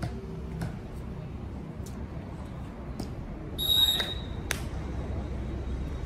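Referee's whistle blown once, a short shrill blast about halfway through, over voices from the crowd and a few sharp hits of a volleyball.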